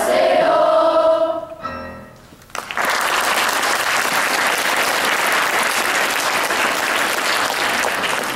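A sixth-grade children's choir holds its final sung chord, then sings one short last note about two seconds in. The audience then breaks into steady applause.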